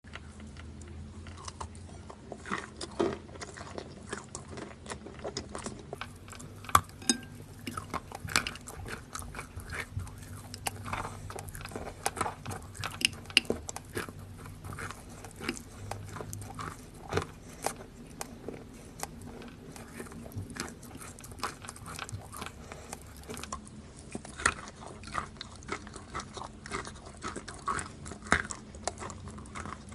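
A person biting and chewing wet chalk close to the microphone: irregular crunches and small clicks throughout.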